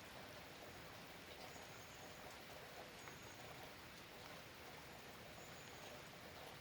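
Faint, steady rain falling, with scattered soft drip ticks.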